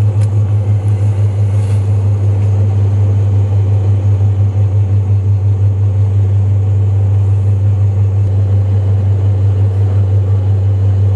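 Interior drone of a moving vehicle: its engine and running gear make a loud, steady low hum that wavers slightly.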